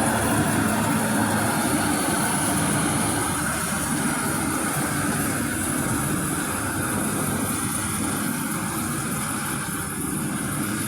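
Maxxi J rice combine harvester running steadily under load, with a high whine over the engine, slowly growing a little quieter.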